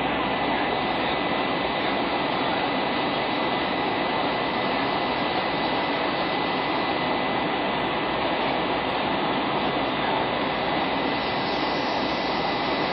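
Steady jet engine and airflow noise inside the cabin of an Airbus A320 powered by IAE V2527-A5 turbofans, with a thin steady high whine over the roar.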